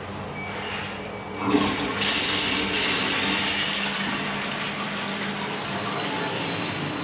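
Squat toilet being flushed: a sudden rush of water about a second and a half in, which then runs on steadily.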